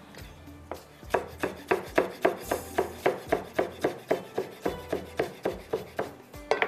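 Kitchen knife chopping fresh coriander leaves on a cutting board: a single stroke, then a quick, regular run of chops at about four a second from about a second in.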